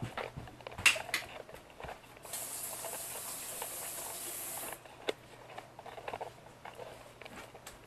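A steady, even hiss, like a spray, lasting about two and a half seconds and starting and stopping sharply. Light clicks and knocks come before and after it.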